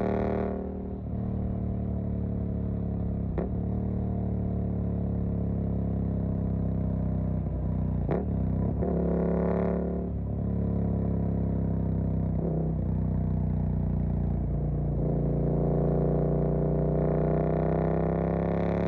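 Suzuki GSX-8S 776 cc parallel-twin engine under way through an aftermarket Jeskap EVO exhaust, running steadily at road speed. Its note dips briefly about a second in and again around ten seconds, with a few sharp clicks in between. The pitch sags slowly, then climbs near the end as the bike accelerates.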